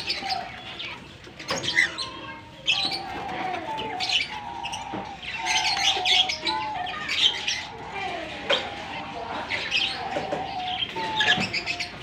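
Several caged cockatiels calling: a dense, continuous chatter of high chirps mixed with short, level whistles.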